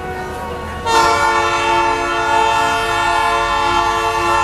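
Canadian Pacific diesel locomotive's air horn sounding a loud, steady multi-note chord. It starts abruptly about a second in and is held without a break, sounded as the train nears the level crossing.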